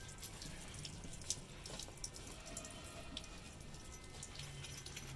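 Water splashing and dripping as clothes are hand-washed in a plastic tub, in small irregular splashes with one sharper click just over a second in.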